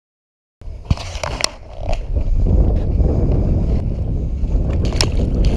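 After a half-second of silence, a few sharp clicks and knocks, then loud, steady wind buffeting on the camera microphone from about two seconds in, with no speech.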